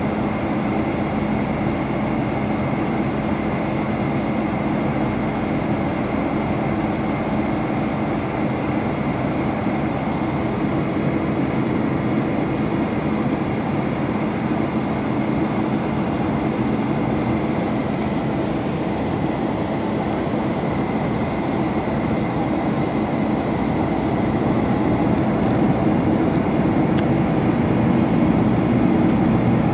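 Steady cabin noise of a flydubai Boeing 737 on approach: the even rush of jet engines and airflow past the fuselage, with a low steady hum and a faint high whine over it. It grows a little louder in the last few seconds.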